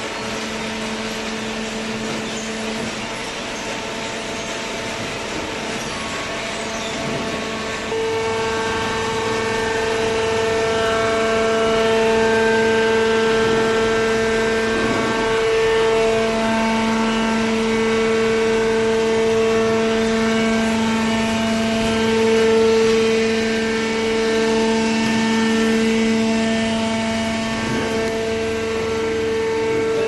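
Hydraulic baling press running: a steady humming whine from its motor-driven hydraulic pump. It grows louder and fuller about eight seconds in.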